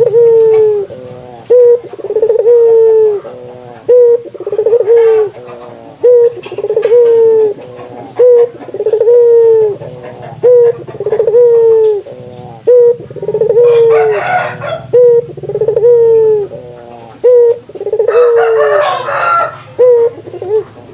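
Puter dove cooing over and over: a short note followed by a longer drawn-out coo, the phrase repeating about every two seconds. Twice, a brief scratchy noise sounds alongside the calls.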